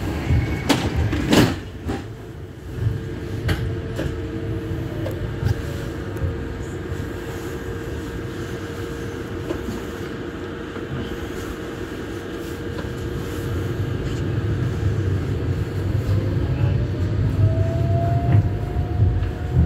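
Electric tram running with a low rumble and a steady hum. A few clicks and knocks come about a second in, and near the end a motor whine rises in pitch and the level grows as the tram picks up speed. Heard from inside the tram.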